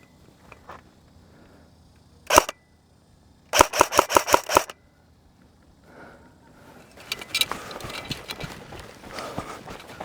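Airsoft gun firing: a short burst about two seconds in, then a rapid automatic burst lasting about a second. Footsteps and rustling follow near the end.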